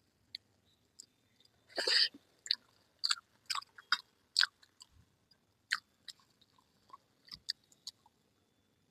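A person chewing a mouthful of rice and curry, making a run of wet mouth clicks and smacks. The clicks start with a louder burst about two seconds in, come thickly for a few seconds, then thin out.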